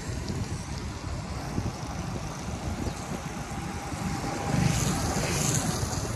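Wind buffeting the microphone of a moving bicycle: a choppy low rumble over a steady hiss. It grows louder for a moment about four and a half seconds in.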